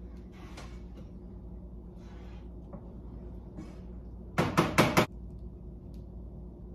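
A quick run of four sharp knocks, about four and a half seconds in, over a steady low hum and faint handling rustles in a kitchen.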